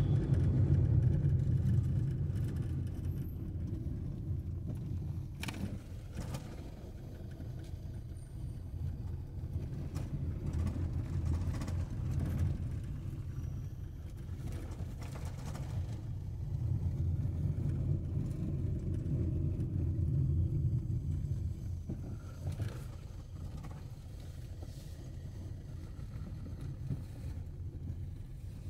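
A car driving, heard from the moving car: a steady low rumble of engine and road noise that grows louder and softer a few times.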